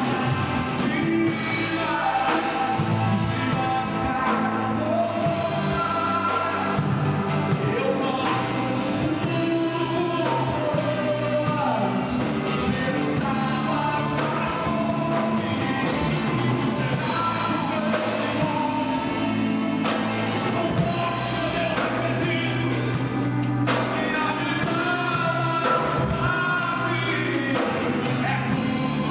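Worship band playing a song, with a singing voice over steady drums and held instrument chords.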